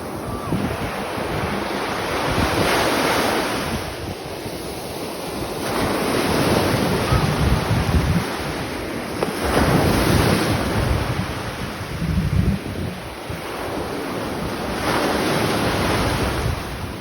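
Sea waves breaking and washing onto the shore, surging in louder every few seconds, with wind buffeting the microphone.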